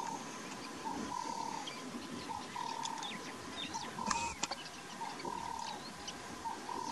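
Birds calling in the bush: one short mid-pitched note repeats over and over, with scattered quick high chirps from other birds.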